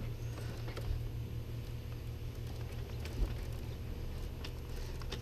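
Sewer camera push cable being fed by gloved hands into a roof vent stack, with faint scattered ticks and scrapes over a steady low hum, and one small knock about three seconds in.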